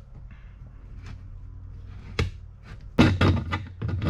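A single sharp knock, then a second later a quick run of clattering knocks and thunks, as of hard objects being handled, over a low steady hum.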